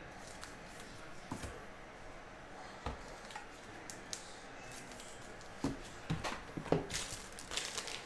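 Trading cards and their clear plastic sleeves being handled: faint rustling with a few light clicks and taps, growing busier in the last couple of seconds.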